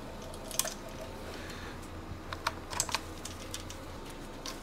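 Light, irregular clicks and clinks of a steel timing chain being threaded into a Chevy 2.2 Ecotec engine, its links tapping against the sprockets and block.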